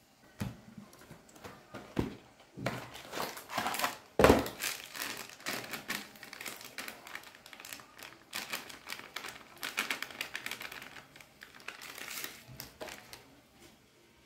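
Crinkling and rustling of a cardboard spice box and the foil sachet inside it being opened and shaken out over a bowl, with many small clicks and a sharp knock about four seconds in.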